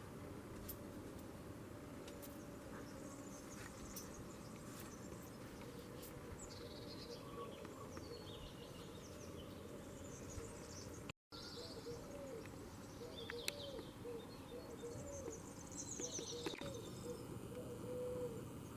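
Small birds chirping in short high calls over a steady low background noise. After a cut about eleven seconds in, a dove coos over and over while the chirping goes on.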